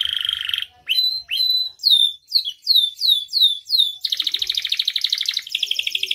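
Domestic canary singing: a rapid rolling trill, then a string of about three downward-sliding whistled notes a second, then another fast trill that steps up to a higher, faster one near the end.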